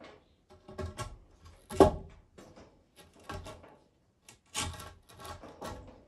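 A round wooden roof beam being worked into a hole in a masonry wall: a string of knocks and scraping clunks, the loudest about two seconds in.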